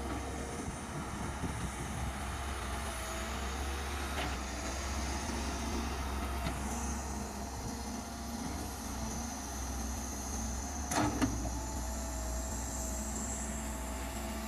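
Kobelco hydraulic crawler excavator's diesel engine running steadily as the machine works, with a thin steady whine over the engine. A few light knocks and one sharp metallic clank come about eleven seconds in.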